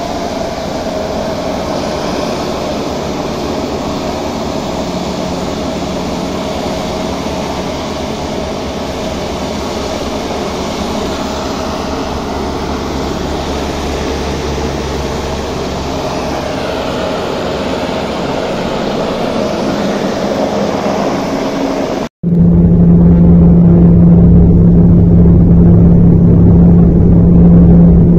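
A steady mechanical drone that grows slightly louder, then after a sudden break, the louder cabin noise of a small high-wing turboprop aircraft on the runway: a steady low hum under the engine drone.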